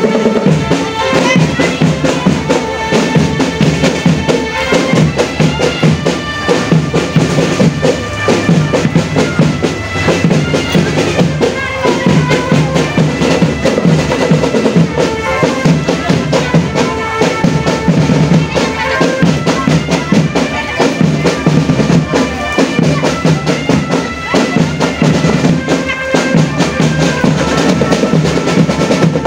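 Marching drum band playing: rapid snare and bass drum beats under a held, reedy melody line.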